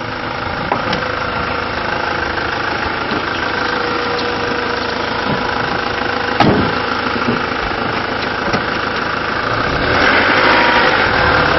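Ford Transit van's 2.0-litre Duratorq DI turbo diesel idling steadily, a little louder from about ten seconds in. A single short knock comes about six seconds in.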